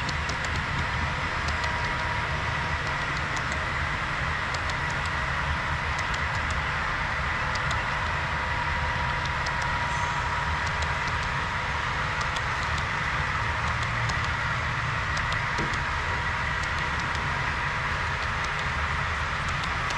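HO-scale diesel locomotives' LokSound decoders playing diesel engine sound through their small onboard speakers, a steady rumble with a constant whine on top, and scattered faint clicks.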